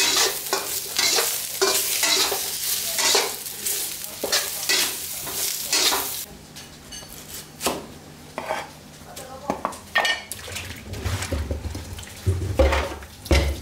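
Metal spatula scraping and clanking in an aluminium wok about twice a second as leaves and aromatics are stir-fried, with sizzling. About six seconds in it gives way to quieter clatter and low knocks of an aluminium pot being handled in a steel sink.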